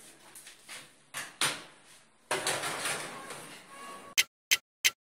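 Knock and scrape of an aluminium baking pan being slid into a small electric countertop oven, the oven door handled. Near the end, an even clock-like ticking starts, about three ticks a second.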